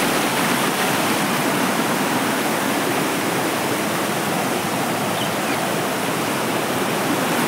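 Steady rush of running stream water, an even hiss with no breaks.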